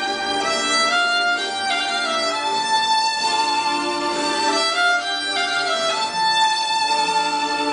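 Violin played with the bow: a slow melody of long held notes.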